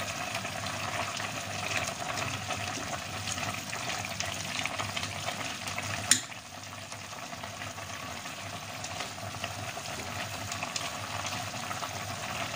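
Rice-noodle broth bubbling at the boil in a stainless steel pot while the noodles are stirred with tongs, a steady bubbling hiss with small crackles. A single sharp click about six seconds in.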